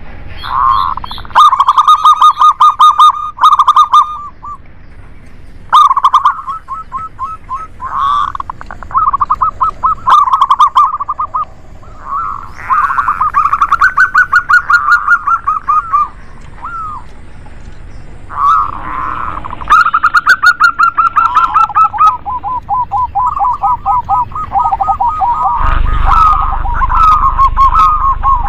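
Zebra doves (perkutut) cooing: runs of quick, rapidly repeated notes, one run after another, with two birds sometimes calling over each other.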